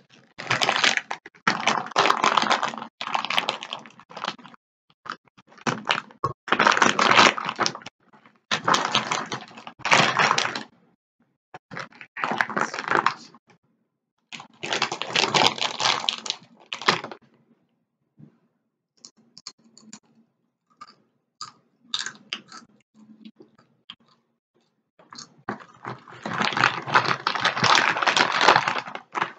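Chips being eaten and their foil-lined bag handled close to the mic: loud bouts of crunching and crinkling, one to three seconds each. A quieter stretch of small crackles and clicks comes about two-thirds of the way through.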